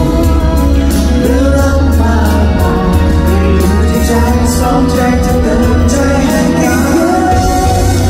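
Live pop concert music: male vocals sung into a microphone over a full band with a steady bass line, amplified through the venue's sound system.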